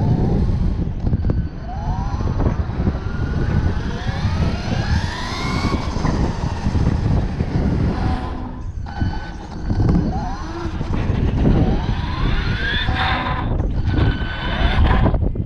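RC monster truck's motor and drivetrain whining, rising in pitch as the car speeds up, twice, over a heavy rumble from the knobby tyres on a rough tiled surface, recorded from a camera riding on the car.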